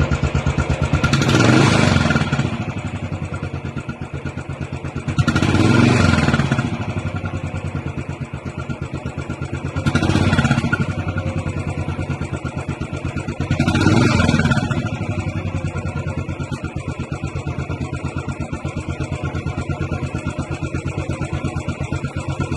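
Royal Enfield Bullet Trials 500's single-cylinder engine idling through its standard exhaust, revved four times, each rev lasting a second or two before dropping back to idle.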